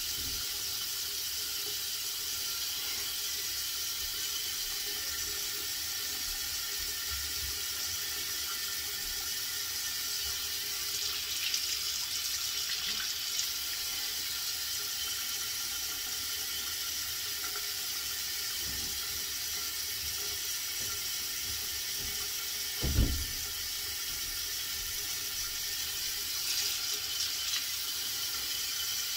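Water running steadily from a tap into a sink, an even hiss, with one short knock about 23 seconds in.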